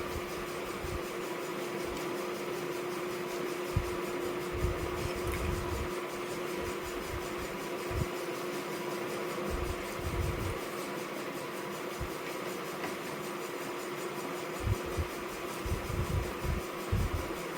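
Steady fan hum with one constant low tone, broken by soft, irregular low thumps that come more often near the end.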